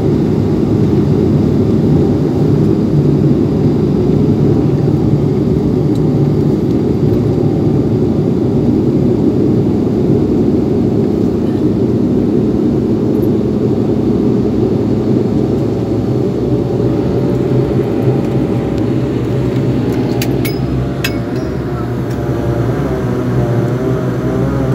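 Turboprop airliner engines and propellers running as the plane taxis on the ground, heard from inside the cabin: a loud, steady low rumble, with a droning propeller tone coming in over the second half and a few light clicks near the end.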